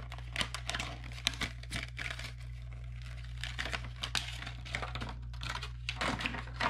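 Plastic lure packaging crinkling and rustling in the hands as it is torn open, a string of irregular crackles.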